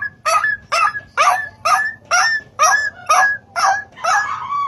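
A boy's voice imitating a dog barking: about ten short barks at roughly two a second, the last one drawn out and trailing off.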